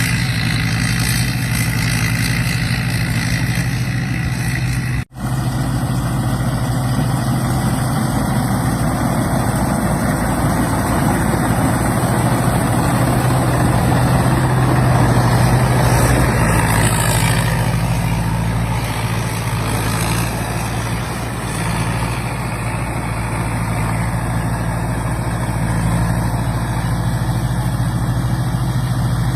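Combine harvester's diesel engine running steadily, with a constant hum. The sound cuts out for an instant about five seconds in, then carries on unchanged.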